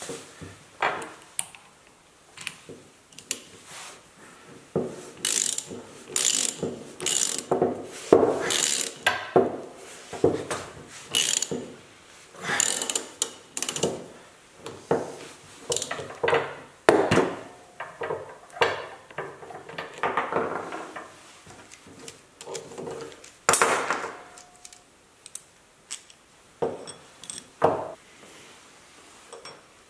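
Ratchet wrench clicking in short, irregular strokes as it drives the stamp of a brake-line flaring tool to cold-form the flare on a brake line, with knocks of metal tools being handled.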